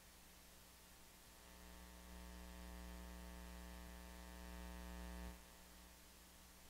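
Faint electrical mains hum, a buzz of many evenly spaced steady tones, that swells about a second and a half in and cuts off suddenly a little after five seconds.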